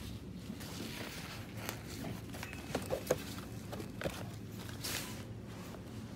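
Supermarket aisle ambience: a steady low hum with footsteps and a few light knocks and clicks of goods being handled, the clearest about three and four seconds in.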